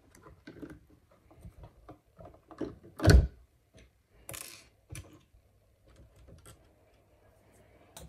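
Plastic clicks and handling noises as a replacement wheel module is pressed into its bay in the underside of a Vileda VR 302 robot vacuum, with one sharp, loud knock about three seconds in as the module seats. A short scraping rustle follows a second later, then a few faint clicks.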